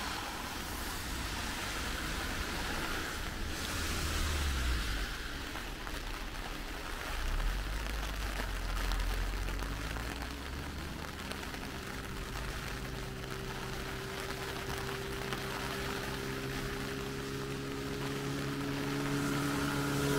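Steady rain hiss. About halfway through, an engine's hum comes in, rising slightly in pitch and growing louder toward the end as a vehicle approaches.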